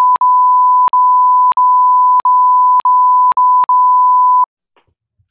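A steady, pure reference tone of the kind played with colour bars, broken seven times by brief click-marked dropouts that come closer together, then cutting off about four and a half seconds in.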